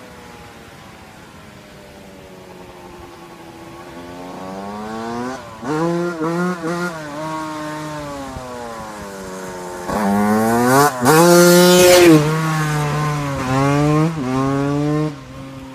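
Honda CR125 two-stroke motocross bike approaching and passing at full throttle. The engine pitch climbs and drops back several times as it works up through the gears. It is loudest as it goes by about two thirds of the way in, then falls away sharply near the end.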